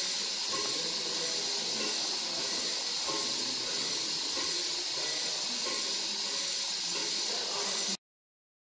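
Steady steam hiss from a small vertical steam engine; it cuts off suddenly near the end.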